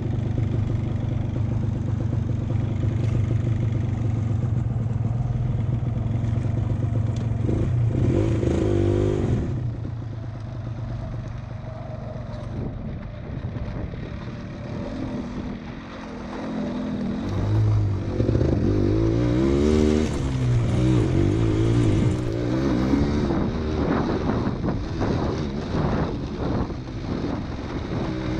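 Suzuki MX125 motorcycle engine running, steady for the first several seconds, then revving up and down. It eases off and runs quieter for a few seconds in the middle, then is revved repeatedly, rising and falling, through the second half.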